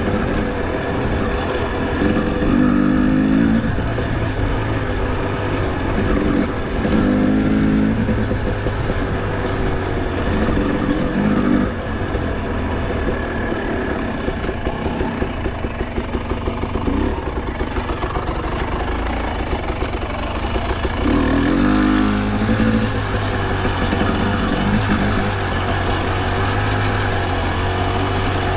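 Enduro dirt bike engine revving up and dropping back in repeated bursts as the throttle is worked. About halfway through it chugs at low revs with an even pulse.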